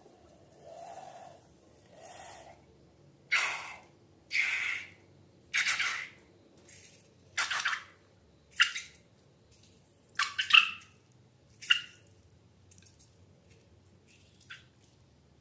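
Slime being squished and pressed by hand: a series of separate short wet squishes with gaps between, the loudest about two-thirds of the way through.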